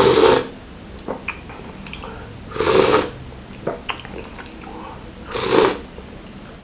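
A man slurping spicy chicken noodles and broth off chopsticks: three loud slurps roughly two and a half seconds apart, with quieter chewing and small mouth clicks between.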